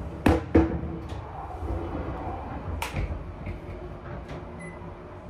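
Plastic fold-down baby changing board in a train toilet knocking as it is handled: two sharp knocks about a quarter second apart near the start, and one more near three seconds in as it is folded back up against the wall. A low rumble from the moving train runs underneath.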